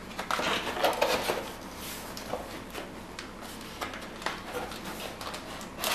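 Cardboard packaging being handled: an inner box and insert tray sliding, rubbing and knocking against the outer box. The rustling is busiest in the first second or so, then thins to sparse soft scrapes and ticks.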